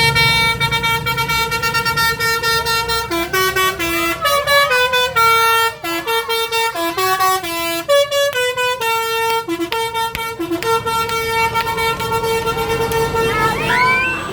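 Telolet-style Basuri multi-tone vehicle horn playing a tune: a held chord of several horn notes, then a quick run of changing notes through the middle, ending on another long held chord. Low engine rumble underneath at first.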